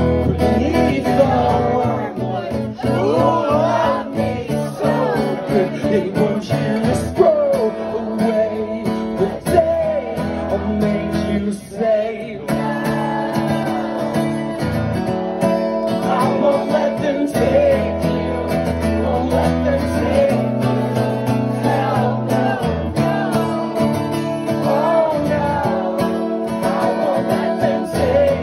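A man singing to his own strummed acoustic guitar in a live solo performance.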